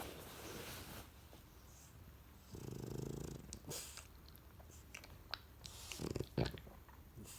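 French bulldog snoring in its sleep. A breathy exhale comes first, then one rumbling snore about two and a half seconds in. It is followed by a run of wet lip-smacking clicks from its drooling mouth and a short, louder snort near the end.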